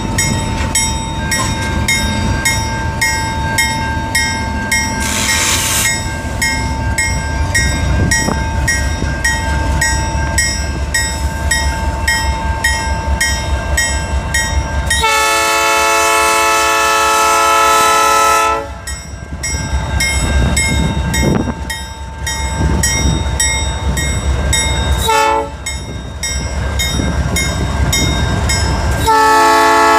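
Freight train passing close by at slow speed, led by BC Rail 4642, a GE Dash 9-44CW diesel, with its engines rumbling and a bell dinging rapidly. The lead locomotive's multi-chime air horn sounds a long blast about halfway through, a short toot, and another long blast near the end.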